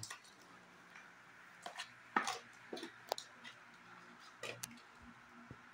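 Thick brownie batter being scraped out of a metal bowl with a spatula and dropped onto parchment paper: faint, scattered wet squishes and scrapes with the odd crinkle of paper.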